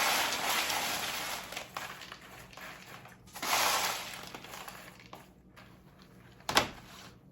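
Dry, crunchy snack mix being handled, rattling and rustling in two bursts about three seconds apart, then a single sharp click near the end.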